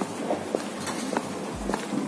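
Footsteps of a person walking: soft clicks and low thuds about twice a second.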